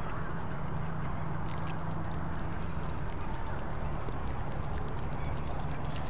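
A fishing reel being cranked to retrieve a topwater cicada lure, giving a fast run of fine ticks from about a second and a half in, over a steady low hum.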